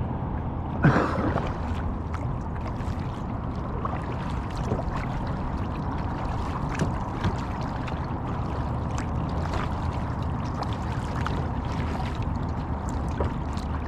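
Water gurgling and lapping against a kayak's hull, with one louder splash about a second in.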